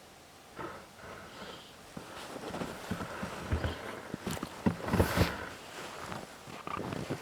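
Footsteps crunching in snow, irregular and uneven, starting under a second in and getting louder and busier, loudest about five seconds in.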